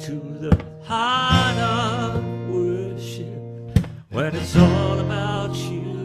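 Music: a slow worship song with a singing voice holding wavering notes over strummed acoustic guitar.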